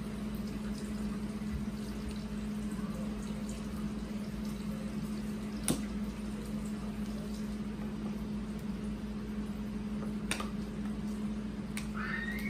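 Plastic packaging bag being handled and pulled open, with faint crinkling and two sharp clicks, about halfway through and again near the end, over a steady low hum.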